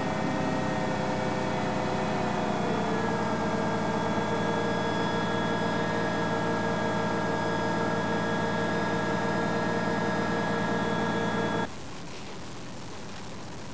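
Light Armored Vehicle's diesel engine running at a steady pitch. It cuts off abruptly near the end, leaving a quieter, steady hiss.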